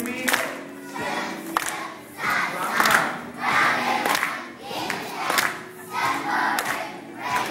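A large group of young children singing and chanting together on stage, loud and rhythmic, their voices swelling on a regular beat a little over a second apart.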